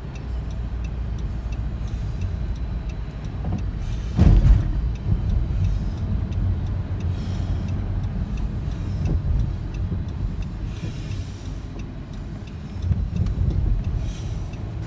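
Road and engine noise inside a moving van's cabin, a steady low rumble, with one loud thump about four seconds in.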